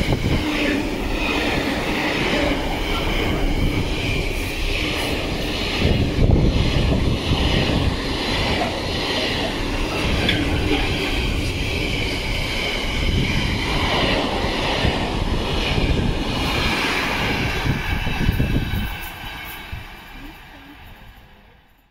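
Container freight train passing close by: a continuous rumble of wagon wheels on the rails, with a steady high ringing over it. The sound fades away over the last few seconds as the end of the train moves off.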